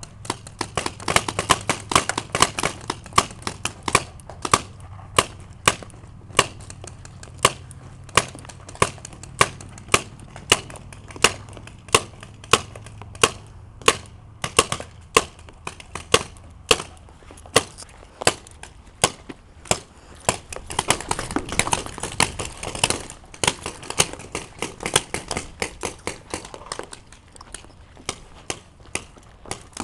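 Paintball markers firing, a string of sharp single pops about one to two a second, some in quick pairs, with a denser flurry about two-thirds of the way through.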